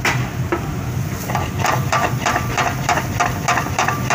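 A metal spatula striking and scraping a stainless steel pan while stirring garlic and onion in oil: a sharp clank at the start, another shortly after, then a steady run of ringing taps about three a second. A steady low hum runs underneath.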